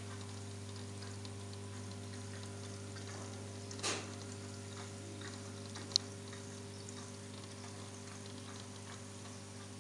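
Aquarium air pump humming steadily, with faint bubbling and ticking from the air-driven sponge filter. A brief rush of bubbles about four seconds in and a single sharp click about six seconds in.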